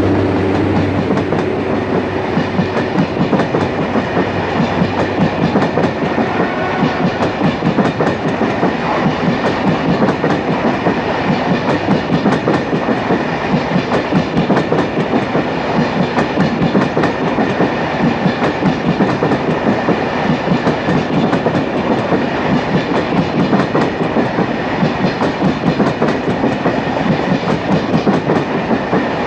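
Passenger coaches rolling past close by, their wheels clattering over the rail joints in a fast, steady rhythm. The drone of the diesel locomotive that hauls them dies away in the first second.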